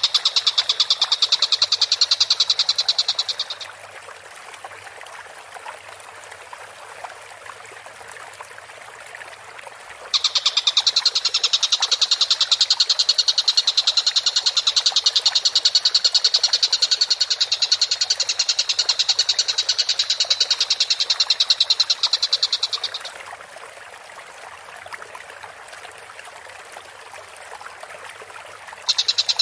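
Tengkek buto (a kingfisher) calling in a fast, high, rattling trill of rapidly repeated notes. The calls come in long bouts: one stops about three and a half seconds in, the next runs from about ten seconds to about twenty-three seconds, and another starts just before the end.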